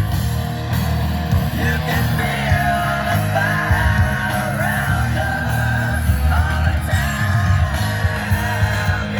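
Rock song with a singer and guitar playing back through a Harman Kardon speaker system, heavy on the bass.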